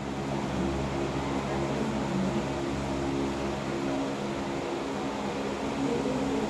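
Steady background hum of a small room, with faint, indistinct voices under it.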